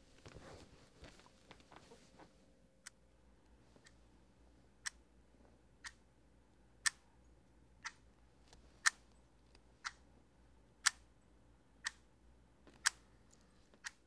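Wall clock ticking once a second, a Kit-Cat Klock, with the strokes alternating louder and softer like a tick-tock. The ticks start about three seconds in, after some faint rustling.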